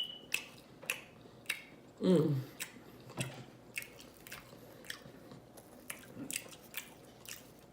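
Close-miked chewing with wet mouth-smacking clicks, about two a second, irregular.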